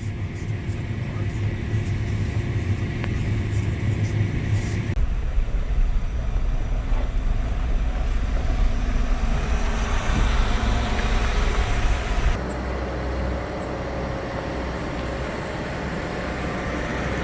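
Farm vehicle engine running steadily, in three pieces cut together: the sound changes abruptly about five seconds in and again about twelve seconds in.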